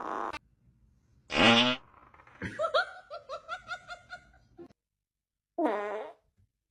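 A short, loud fart-like noise about a second in, followed by a run of quick, rhythmic laughter-like pulses, and a second short fart-like noise near the end.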